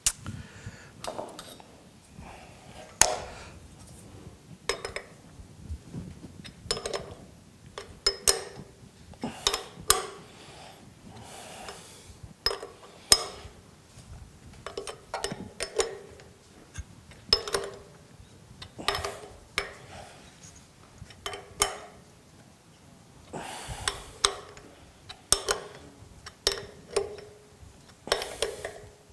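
A steel hex key clinking against the knife-clamp bolts and cutterhead of a Makita 2040 planer as the bolts are snugged down: a long string of irregular metal clinks, some ringing briefly.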